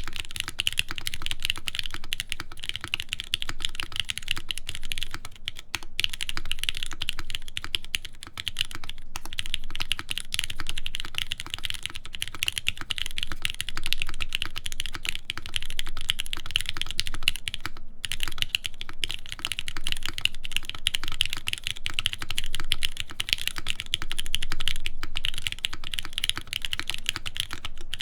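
Continuous typing on a CarolinaMech Palmetto mechanical keyboard. It has lubed Gateron Milky Pro Yellow linear switches on an aluminium full plate, Hammerworks CRP keycaps, and clipped, lubed Cherry stabilizers. The keystrokes run fast and dense, with a few brief pauses.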